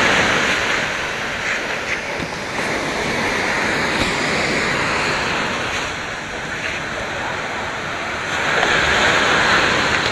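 Steady rush of sea surf with wind on the microphone, swelling louder near the end.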